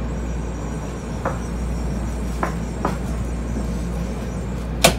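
Shinkansen train rolling slowly into a platform, heard from inside the car near the door: a steady low rumble with a few brief ticks and one sharp click near the end.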